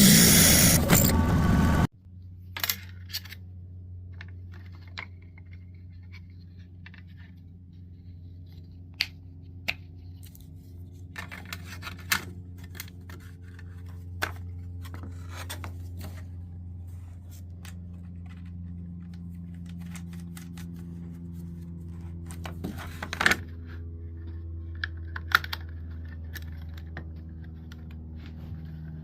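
A loud noise cuts off abruptly about two seconds in. After that come scattered light clicks, taps and metal clinks of small hardware being handled, over a steady low hum, with a short burst of louder scraping about three quarters of the way through.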